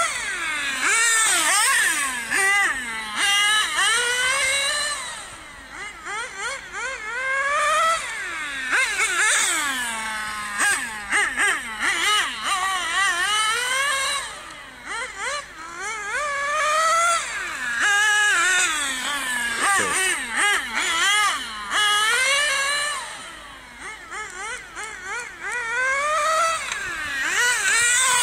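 Radio-controlled car's motor whining, its pitch rising and falling over and over as it speeds up and slows down. It grows fainter twice, as it runs further off.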